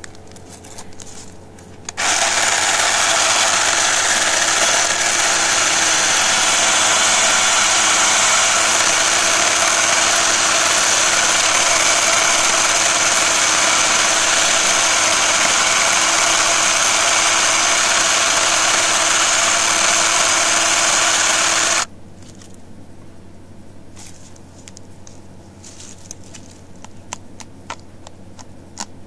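Ryobi 10-inch battery chainsaw running flat out at a steady pitch while cutting through the base of a tree trunk. It starts abruptly about two seconds in and cuts off suddenly about twenty seconds later, leaving only faint rustling and clicks.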